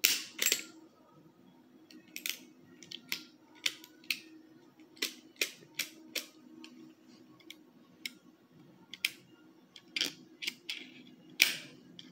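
Metal clicking of a single-action revolver-style BB gun being worked by hand: its cylinder, hammer and loading gate give an irregular string of sharp clicks. The loudest come at the start and near the end.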